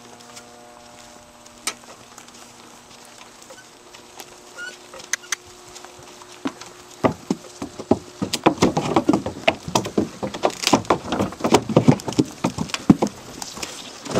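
Curly pony's hooves walking on a dirt trail, then from about seven seconds in clopping on the wooden planks of a footbridge, with the cart rattling over the boards, louder and denser for about six seconds before easing off.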